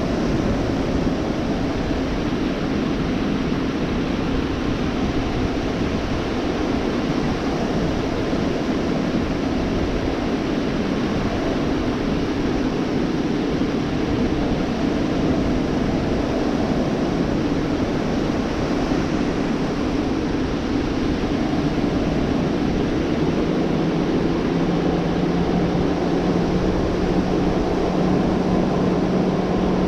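Steady wash of Gulf surf with a low, even engine drone over it. A second, deeper hum joins about three-quarters of the way through.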